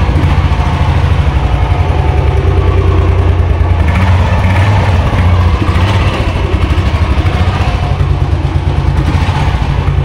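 Royal Enfield Classic 350's single-cylinder engine idling steadily with a rapid, even low pulse. It has just started on the electric starter with a new battery, which shows the old, worn-out battery was the fault.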